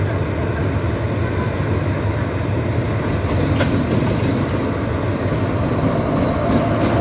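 Diesel-electric locomotive drawing a train slowly along the platform towards and past, its engine running with a steady low hum over the rumble of the train, growing slightly louder near the end.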